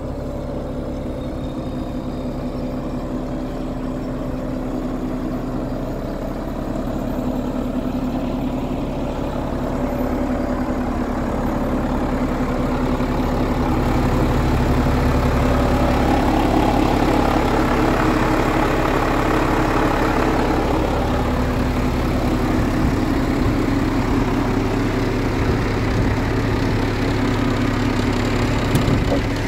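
A Renault Premium 420 truck's six-cylinder diesel engine idling steadily. It grows louder for several seconds past the middle, then eases a little.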